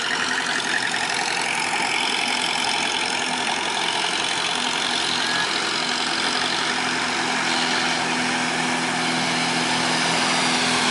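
Long-tail boat engines, big car-type engines on long propeller shafts, running steadily as the boats pass close by, with water rushing along their hulls. A deeper engine hum comes in about halfway through and grows slightly louder near the end as a boat draws close.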